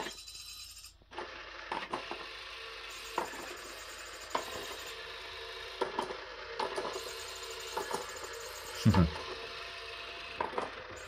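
Battery-powered JML Pop n Play motorised peekaboo cat toy running: its motor whirring steadily inside the plastic dome, with irregular plastic clicks and clacks from the spinning mechanism about once a second, and one louder knock about nine seconds in.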